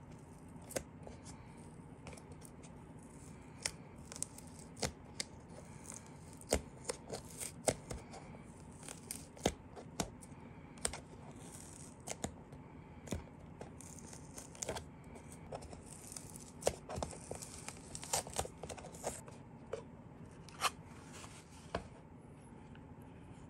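Unboxing by hand: a small cardboard box's seal peeled and torn open, with many scattered sharp clicks, taps and crinkles of cardboard and plastic packaging, over a low steady background hum.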